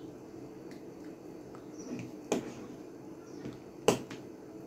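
A few small, sharp clicks and ticks of a small tool prying at the side plate of a baitcasting reel, the two clearest about two and a half and four seconds in, over a faint steady hum.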